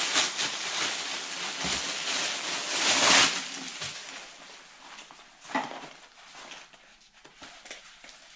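Clear plastic packaging bag crinkling as a folded tactical vest is pulled out of it, loudest about three seconds in. After that, softer rustling of the vest's fabric and straps with a few light knocks.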